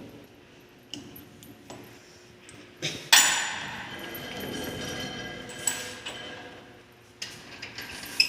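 Metal tools and parts being handled on a lathe: a few light clicks, then a sharp metal-on-metal strike about three seconds in that rings on for a few seconds, and a few more knocks near the end.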